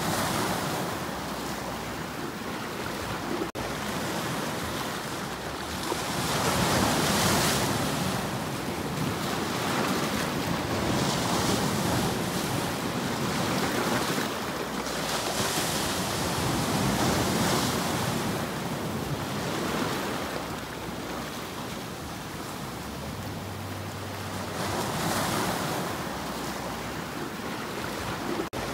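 Sea waves breaking and washing over shoreline rocks, the surf swelling and fading every few seconds.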